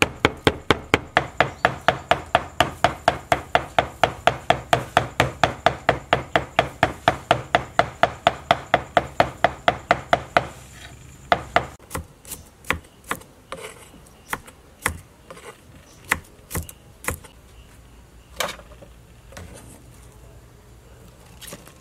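Cleaver mincing snakehead fish flesh on a wooden chopping board: fast, even knocks about five a second. The rhythm stops about ten seconds in, followed by slower, scattered knocks.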